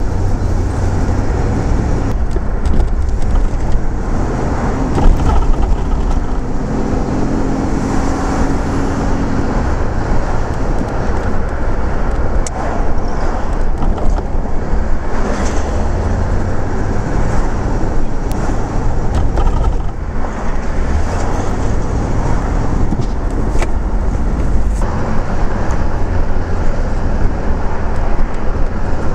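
Road noise inside a 1983 Buick LeSabre driving through city traffic: a steady low rumble of engine and tyres. A steady hum of several tones joins for a few seconds about six seconds in.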